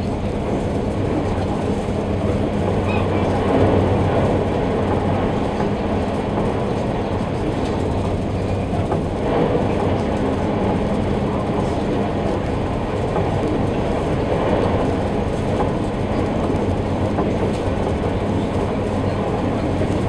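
Passenger ferry's engines running under way, heard inside the passenger cabin: a loud, steady low drone with a constant hum.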